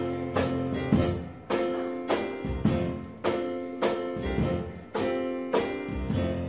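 Instrumental music with a steady beat: held chords over regular percussive strokes.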